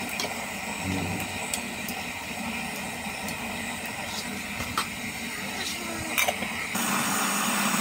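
Metal ladle stirring a pot of simmering vegetable soup, with scattered clinks of the ladle against the metal pot over a steady hiss. Near the end a louder, even rushing sound sets in.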